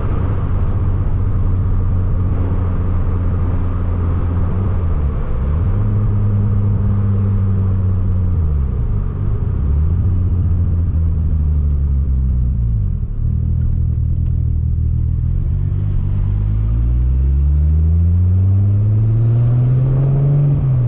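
Turbocharged VR6 engine pulling through the gears on a test drive of its rebuilt wastegate. The pitch climbs with revs and drops at each gear change, several times, with the longest pull in the last few seconds.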